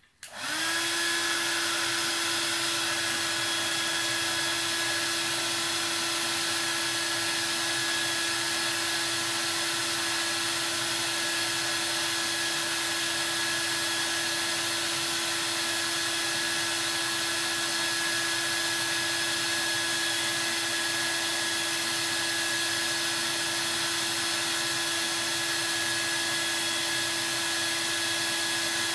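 Hair dryer switched on about half a second in and running steadily on high heat, with an even hum and a higher whine, blowing hot air onto a bag's zipper to soften it so the displaced teeth seat back in place. It cuts off right at the end.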